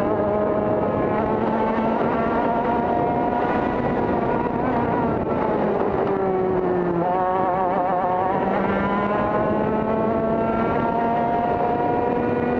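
TKM two-stroke kart engine running hard on track, its pitch climbing under full throttle. About six to seven seconds in it drops as the throttle is lifted for a corner, wavers briefly, then climbs again as the kart accelerates out.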